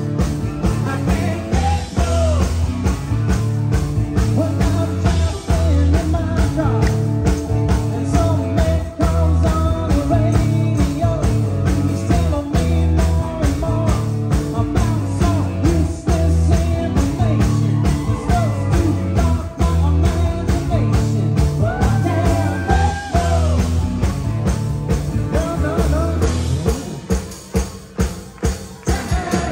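Live rock band playing a song: drum kit keeping a steady beat, bass and guitars, with a lead vocal. Near the end the other instruments drop back, leaving spaced drum hits.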